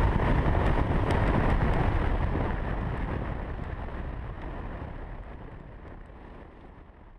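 On-bike sound of a 1984 Honda XL600R being ridden: its single-cylinder four-stroke engine and wind buffeting the chest-mounted camera's microphone, fading out steadily from about two seconds in.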